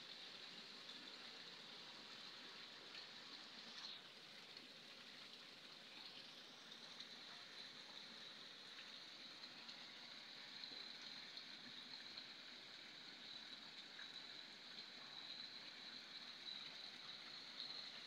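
Faint, steady splashing of water falling from a wall fountain's spillway slots into the basin below.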